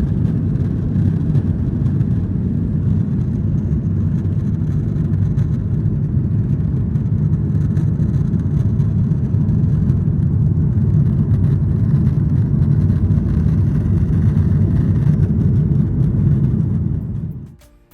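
Boeing 737-900ER cabin noise heard from a seat inside: a steady, low rumble of the jet engines and airflow. It cuts off suddenly near the end.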